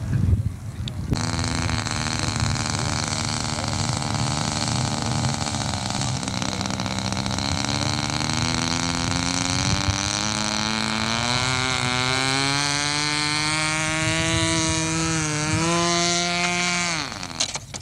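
Engine of a radio-controlled scale model biplane running. It holds a steady pitch at first, then climbs steadily in pitch as the throttle opens for the take-off run, dips briefly, rises again, and drops away sharply near the end.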